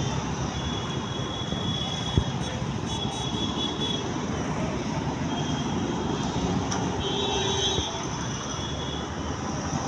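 Steady noise of heavy road traffic passing, with a single sharp knock about two seconds in.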